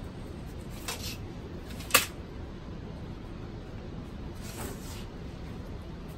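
Handling knocks from moving a PVC pipe and a metal straightedge on a concrete floor: a couple of faint clicks about a second in, one sharp knock about two seconds in, and a soft scuff a little later, over a steady low shop hum.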